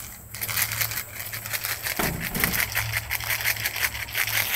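Rapid, irregular crunching and crinkling, several crisp crackles a second, over a faint steady low hum.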